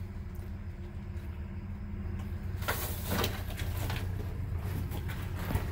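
A steady low hum, with a few scuffs and knocks about three seconds in, like footsteps and handling in a bare steel cabin.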